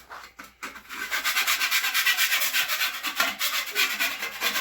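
Quick, even rubbing and scraping strokes, starting about a second in, as old wax is cleaned off during a toilet wax-ring replacement.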